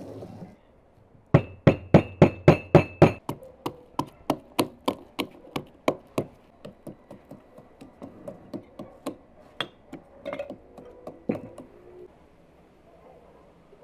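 Plastic pestle pounding in a plastic mortar bowl: quick strikes about three a second, loud with a light ring for the first couple of seconds, then lighter, stopping near the end.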